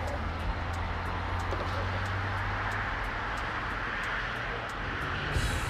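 Vehicle engine running with a steady low hum over constant outdoor background noise, faint evenly spaced ticking, and a short hiss near the end.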